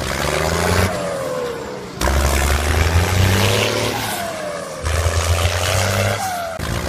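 Looped engine sound effect: a low engine runs hard, then eases off with a falling whine, the same cycle repeating about every three seconds.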